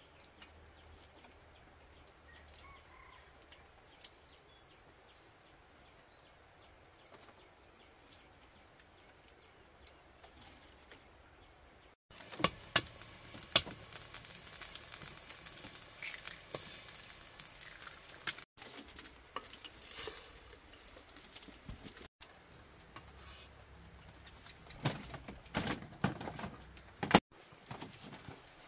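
Quiet at first with a few faint bird chirps. About twelve seconds in comes a sudden cut to cooking noises at a wood-fire hearth: sharp knocks, clinks and clatter of pots and utensils being handled, broken by several more abrupt cuts.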